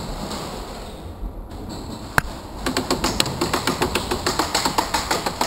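Airsoft gunfire: one sharp shot about two seconds in, then a fast run of rapid shots, several a second.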